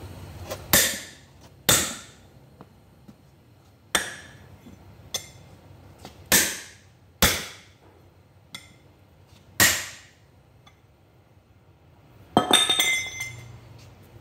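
Hammer striking the steel rim and lock ring of a truck wheel: about seven sharp metallic clangs at uneven intervals, each ringing briefly, then a rattling clatter near the end. The blows are knocking the stuck lock ring loose so the deflated tyre can be taken off.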